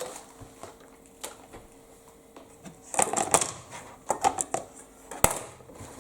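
Irregular clicks and knocks of kitchen utensils and containers being handled on a worktop, with a cluster of clatter about three seconds in and one sharp knock near the end.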